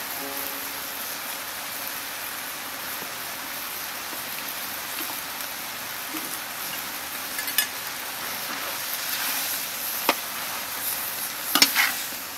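Chinese broccoli, beef and noodles sizzling steadily in a hot wok. In the second half a few sharp clicks and scrapes of a metal spatula and skimmer against the wok break in, loudest near the end as the stirring starts.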